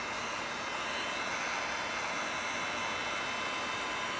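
Handheld heat gun running steadily, blowing hot air onto vinyl wrap film to soften it so it shrinks in around a trim corner.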